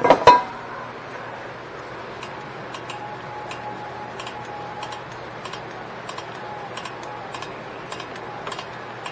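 Rear drum brake self-adjuster on a 2010 Toyota Corolla being turned with a tool, the adjuster lever clicking over the star wheel's teeth about twice a second as the shoes are spread toward the drum. A couple of sharp metallic knocks come just at the start.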